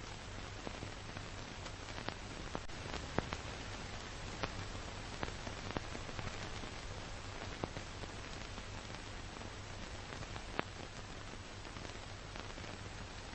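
Steady hiss with a low hum and scattered crackles and pops, the loudest about three seconds in and again near ten seconds: surface noise of an old black-and-white film print.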